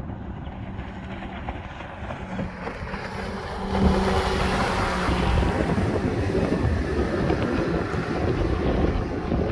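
Outboard engine of a 2017 Hurricane 187 deck boat running at speed as the boat passes close by, its steady drone growing louder and peaking about four seconds in. After the pass, rushing wind on the microphone and water from the wake dominate.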